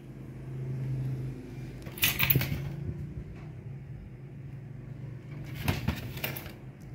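Handling noise: quick knocks and rattles as a hand touches and shifts a compact mini hi-fi unit, in two short clusters a few seconds apart, over a steady low hum.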